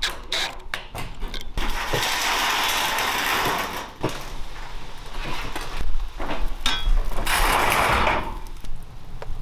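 An 18 V cordless drill driving self-tapping screws into corrugated metal sheeting. There is a run of rapid clicks in the first second and a half, then stretches of grinding and scraping metal.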